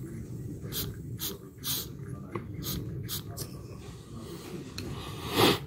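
Short puffs of air blown and sucked by mouth through a fuel hose into a chainsaw carburetor's valve, hissing in quick bursts, with a louder breath near the end. The valve passes air when blown but does not seal fully when sucked, so the test shows it leaking back.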